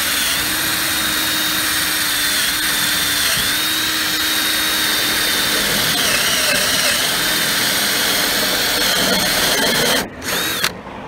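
Cordless drill with a step drill bit cutting through a truck's steel cab roof, the motor whining steadily, its pitch dipping briefly now and then as the bit bites. It stops about ten seconds in, then runs again in one short burst.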